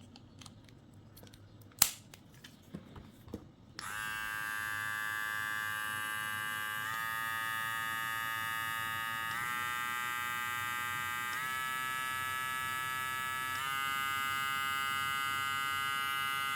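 A few handling clicks, one of them sharp, then about four seconds in a Kemei KM 2796 cordless hair clipper, which has a brushed (not brushless) motor and its second blade fitted, switches on and runs with a steady motor hum. The pitch steps up four times as the speed is raised setting by setting.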